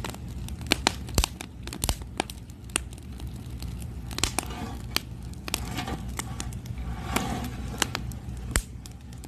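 Wood and charcoal fire crackling, with irregular sharp pops over a steady low hum.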